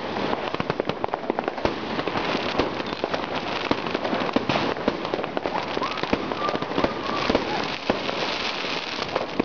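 Many fireworks going off at once: a dense, unbroken crackle of pops and bangs, near and far.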